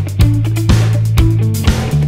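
Background music with a steady beat, about two hits a second, over held low notes.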